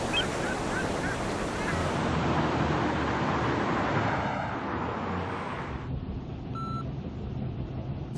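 A steady rushing noise, like wind or surf, that turns duller after about two seconds as its highs fall away, and duller still from about six seconds in. A few short faint chirps sound in the first second and a half.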